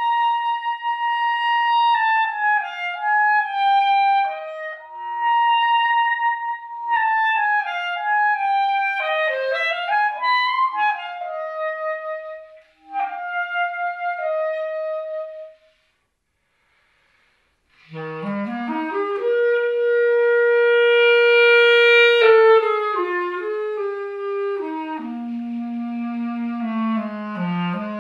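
Solo clarinet playing a slow melody, at first in a high register. After a pause of about two seconds, a new phrase climbs quickly from the instrument's low register, holds a loud sustained note, then steps back down.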